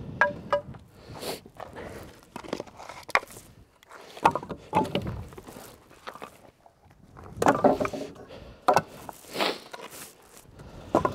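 Split ash firewood pieces tossed by hand onto a heaped trailer load, landing in irregular hollow wooden clunks and clatters about every one to two seconds.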